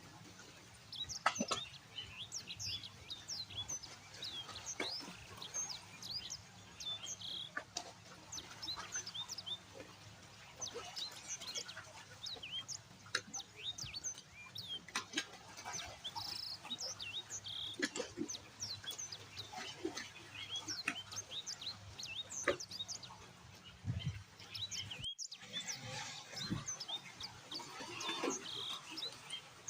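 Many small birds chirping and tweeting, a dense chorus of short, quick high chirps overlapping one another, broken by a sudden brief gap near the end.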